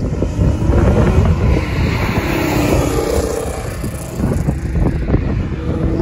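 Car engine and road noise, with wind buffeting the microphone. The sound swells for a moment about two to three seconds in.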